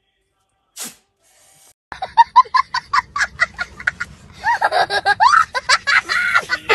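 A short falling swoosh about a second in, then a young child laughing hard: quick bursts of laughter that turn into longer rising and falling squeals.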